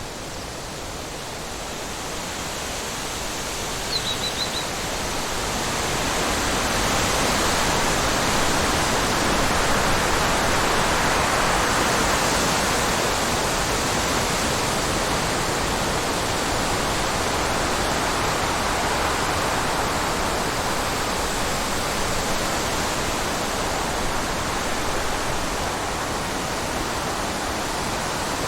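Wind blowing steadily in gusts, swelling over the first several seconds and then holding. A brief bird chirp sounds about four seconds in.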